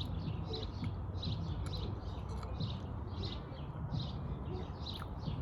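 Small birds chirping outdoors, short high chirps repeating two or three times a second, over a steady low rumble of background noise.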